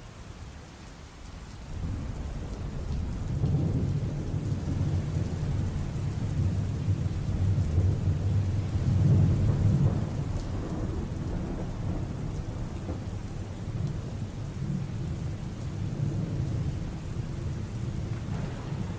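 Recorded thunderstorm sound effect: rain with low rolling thunder that swells in about two seconds in and is loudest around four and nine seconds, played through a hall's loudspeakers.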